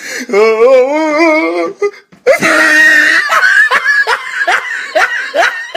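A person's voice warbling on a held, wavering note for about two seconds, then, after a short break, a run of short laughing bursts about two a second.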